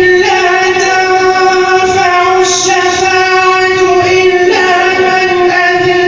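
Melodic Quran recitation: a single voice draws out one long, steady note, then moves briefly in pitch about four and a half seconds in and holds again.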